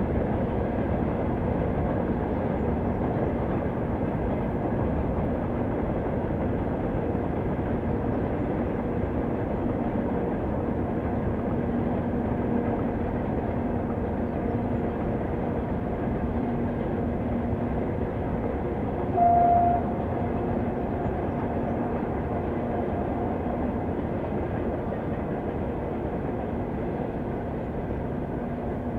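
Diesel train running with a steady engine drone and rumble. A short, single horn toot sounds about two-thirds of the way through.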